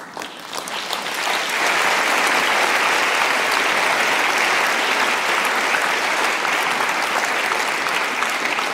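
Large audience applauding: the clapping swells over the first second or so, holds steady, and eases off slightly near the end.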